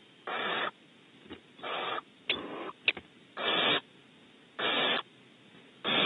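Young barn owl giving its rasping begging hiss over and over, one short hiss about every second, six in all.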